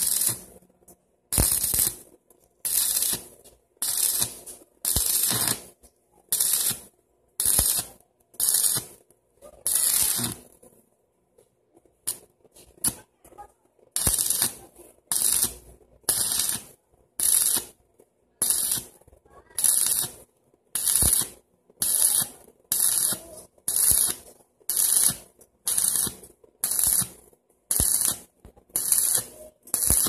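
Stick-welding arc crackling and hissing in short bursts of about a second each, roughly one a second, as the welder strikes and breaks the arc, with a break of a few seconds about a third of the way in.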